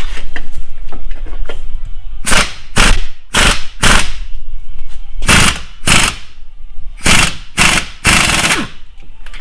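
Impact wrench hammering in short bursts, about nine in all, loosening a wheel bearing hub assembly mounting bolt.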